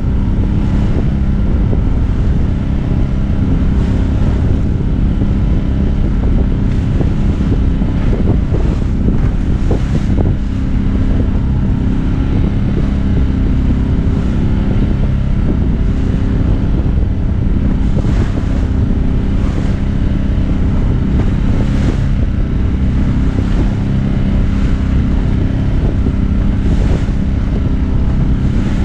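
A small sailboat's motor running steadily under way in rough, choppy water, with wind buffeting the microphone and waves splashing against the hull every few seconds.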